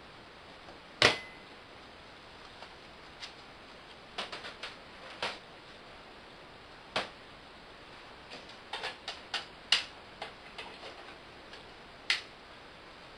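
Stainless steel oven door shutting with a sharp metal clack about a second in, with a brief ring, followed by a scattered series of lighter clicks and knocks from handling the door and its fittings.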